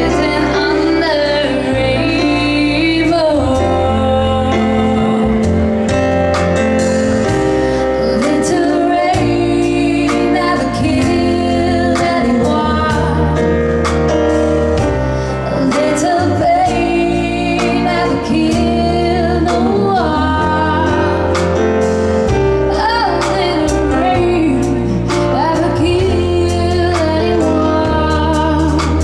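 Live band playing a song: a woman sings over stage piano, double bass and a drum kit with cymbals.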